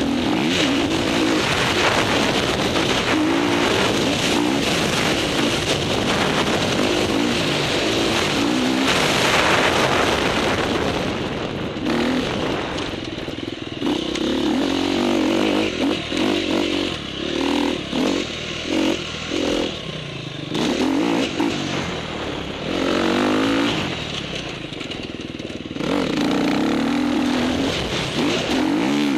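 Motocross bike engine pulling hard under throttle, close to the microphone. Around the middle it turns to a string of short throttle blips about a second apart, drops quieter for a few seconds, then pulls hard again near the end.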